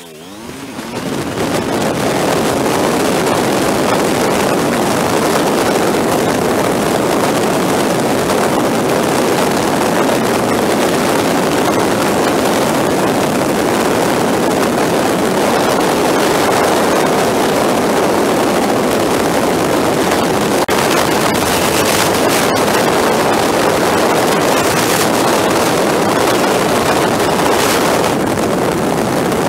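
Motorcycle riding at road speed: a steady loud rush of wind over the microphone with the engine's drone underneath, building up over the first two seconds as the bike pulls away.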